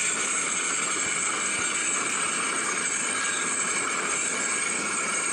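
Steady rushing noise aboard a moving motorboat: water along the hull and wind, with the boat's engine running underneath.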